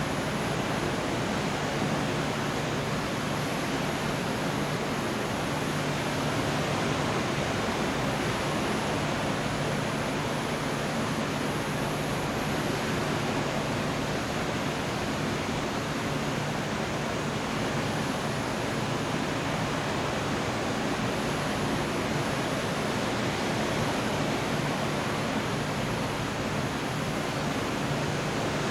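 Storm noise: a steady, even rushing hiss with no thunder claps, and a faint low hum underneath.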